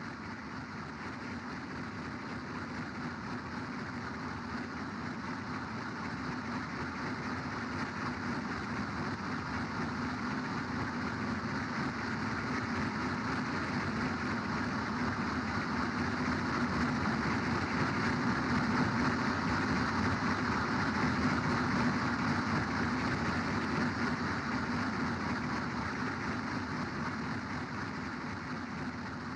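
Electroacoustic industrial drone: a dense, steady, engine-like rumble and hiss with no clear beat, slowly swelling to its loudest about two-thirds of the way through and then easing off.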